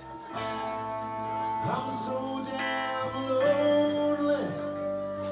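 Live blues band playing: electric guitars, bass guitar and drums, with long held lead notes and a cymbal crash about two seconds in.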